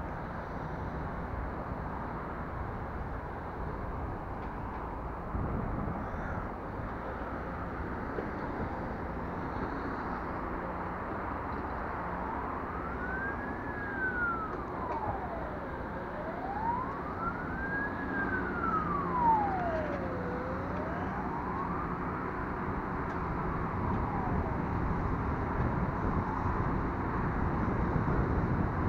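A siren wailing slowly up and down, starting about twelve seconds in and fading out about ten seconds later, over steady outdoor background noise.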